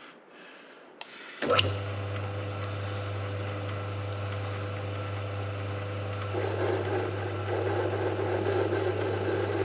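Small metal lathe switched on about a second and a half in, its motor then running with a steady hum. About six seconds in a rougher grating sound joins it for a few seconds as the cutting tool bites into the metal workpiece and turns off chips.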